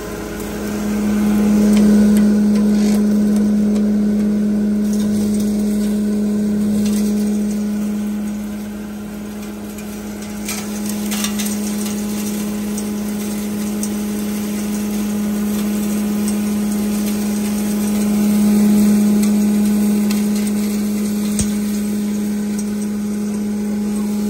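A 7.5 hp cattle feed grinder with a blower-cyclone running with a steady hum while dry chopped plant material is fed into its hopper from a sack. The sound swells about two seconds in and again near the end, with a few short knocks.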